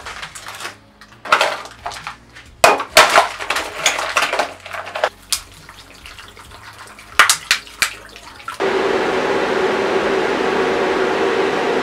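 Blocks of ice, frozen in cut-open plastic bottles, knocking and sliding into a plastic planter trough, with plastic crinkling and water from a plastic bottle splashing over the ice. About eight and a half seconds in it switches abruptly to the steady rush and hum of the cooler's three 120 mm computer fans running.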